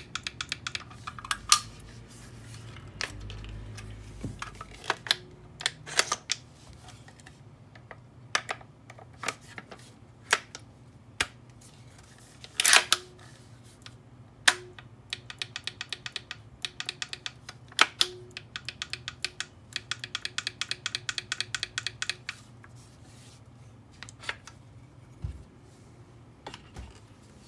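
Small parts of a WE Thompson M1A1 gas-blowback airsoft receiver's lockwork clicking and snapping as they are pressed and released by hand: quick runs of light clicks with several sharper snaps between them, the loudest about thirteen seconds in.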